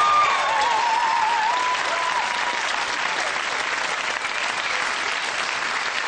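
Studio audience applauding, a dense steady clapping, with a few cheering voices in the first two seconds. The applause eases off slightly toward the end.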